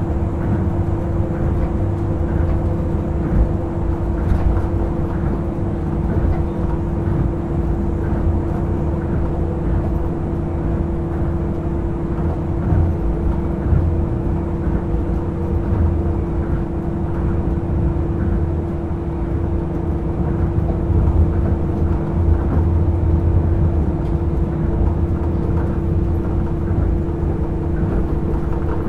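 Hitachi-built Tokyo Monorail Series 1000 car running at a steady speed, heard from inside the car: a continuous low rumble with a steady hum.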